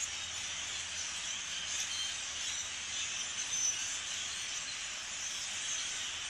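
A large flock of European starlings chattering: a steady, dense din of many overlapping high calls and whistles.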